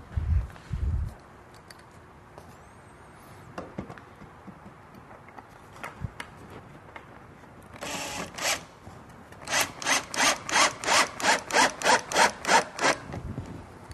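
Wood screw being driven by hand through an angle iron into a wooden table apron: a short rasp, then a quick even run of rasping, creaking strokes, about four a second, as the screw bites into the wood. Two dull knocks at the very start.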